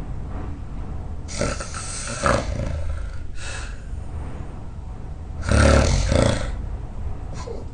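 A person snoring loudly: two long snores about four seconds apart, the second the louder, with a shorter breath sound between them.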